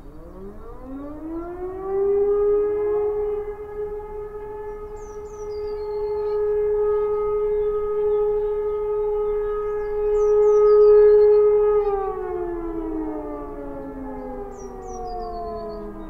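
Electromechanical E57 civil-defence siren sounding a test alarm. It winds up over about two seconds to a steady wail, holds, then winds down from about twelve seconds in. Short high chirps come three times over it.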